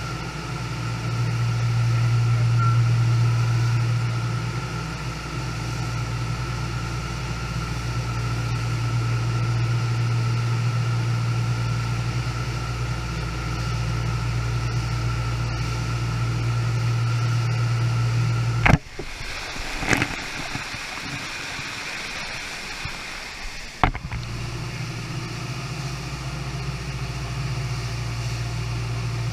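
Standing-wave surf machine: water rushing over the ride surface, driven by its pumps, with a steady deep hum beneath. About two-thirds through, the hum drops away for around five seconds, with a sharp click at the start and end of the gap.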